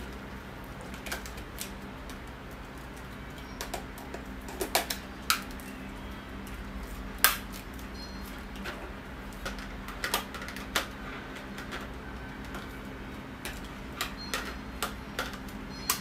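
Hard plastic parts of a HONITURE H9 cordless stick vacuum clicking and knocking as they are handled and fitted together: scattered sharp clicks, the loudest about seven seconds in.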